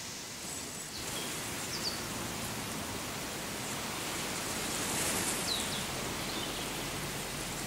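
Steady outdoor noise, an even hiss, with a few brief high chirps about two and five seconds in.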